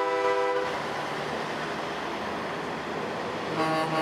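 A semi-truck's multi-tone air horn sounding a chord that cuts off about half a second in, then a steady rushing noise as the rig rolls past, and another horn blast starting near the end.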